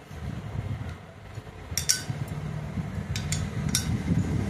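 Steel combination spanner clinking against the bolt heads on a motorcycle engine's cylinder head as the bolts are tightened: a few sharp metallic clicks, one about two seconds in and a quick cluster a little past three seconds, over a low steady hum.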